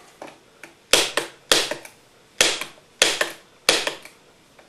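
Bump key in a Ruko Flexcore euro profile cylinder struck again and again with a screwdriver handle: about six sharp knocks, each with a short ringing tail, bumping the pins to open the lock.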